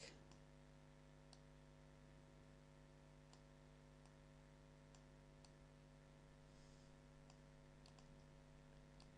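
Near silence: a handful of faint computer mouse clicks, spaced irregularly, over a steady low electrical hum.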